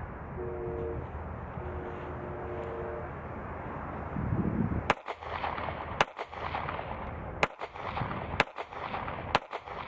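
Ruger EC9s 9mm pistol firing 125-grain polymer-coated reloaded ammunition: five single shots about a second apart, starting about five seconds in. The gun feeds and cycles each round without a malfunction.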